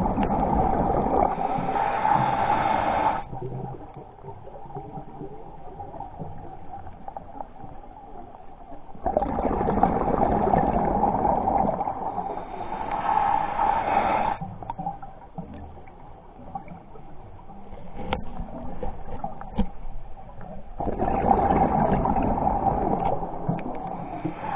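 Underwater, a scuba diver's exhaled bubbles gurgling out of the regulator: three long bursts of bubbling about eleven seconds apart, with quieter stretches between breaths.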